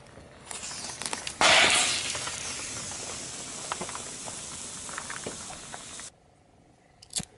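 Plastic disposable lighters crushed under a car tyre: a loud burst, then a steady hiss of escaping gas with scattered crackles, cutting off suddenly about six seconds in.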